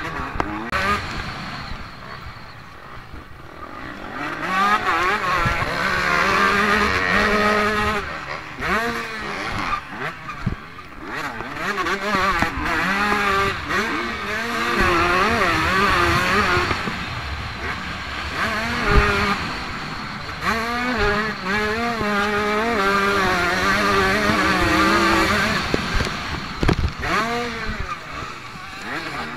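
Motocross bike engine heard from on board, revving hard and falling back again and again as the throttle is opened and closed, its pitch swinging up and down all the way through. It drops back around two to four seconds in and again near ten seconds before building up once more.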